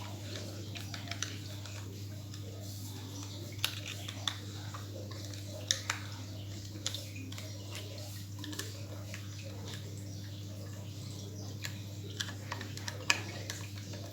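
Scattered small clicks and taps of hands handling a 2.5-inch SSD and its screws and metal bracket, about ten of them at irregular intervals over a steady low hum.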